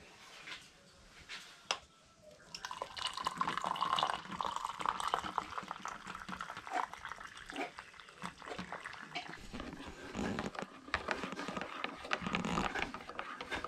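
Hot milk tea poured from a steel saucepan through a strainer into a mug, a splashing pour starting a few seconds in, followed by a spoon stirring and clinking in the mug.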